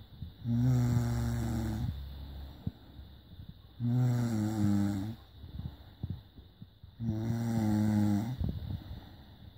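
A sleeping person snoring: three long, steady-pitched snores, each a little over a second, coming about every three seconds, with quieter breathing between them.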